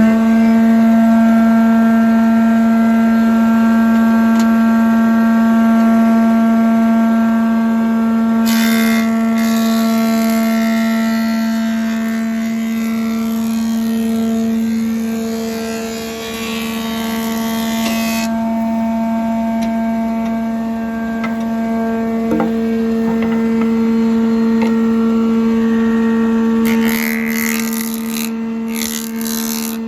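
Hitachi Koki PU150FA universal woodworking machine running at full speed with a steady, high hum. A hiss joins it from about 8 to 18 seconds in, and again near the end.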